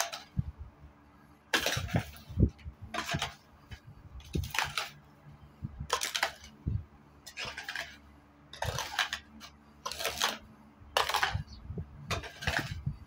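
A long-handled broom sweeping a dusty floor in short strokes, about a dozen brisk swishes, roughly one a second.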